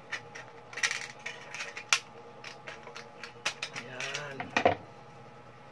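Scissors snipping through a thin aluminium drink can: a run of sharp metallic snips and crinkles, loudest about four and a half seconds in.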